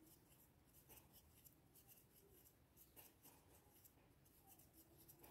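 Near silence, with a few faint ticks and rustles of a crochet hook pulling yarn through single-crochet stitches.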